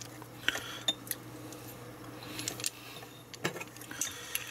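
Small clicks and clinks of a plastic UK three-pin mains plug and its fuse being handled as the plug is put back together, with a louder knock about three and a half seconds in. A faint steady low hum runs underneath.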